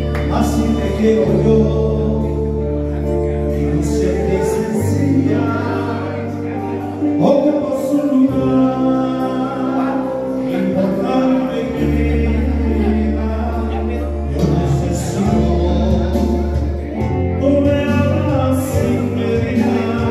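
A man singing a ballad live into a handheld microphone, amplified, over instrumental accompaniment with long sustained bass notes.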